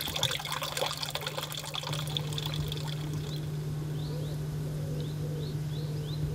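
Water trickling for about the first two seconds, then outdoor ambience: a low steady hum with short, rising bird chirps repeating every half second or so.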